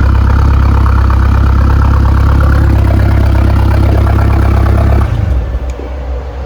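A 2.3-litre turbocharged engine idling steadily and loudly. About five seconds in the sound drops sharply to a quieter, uneven rumble.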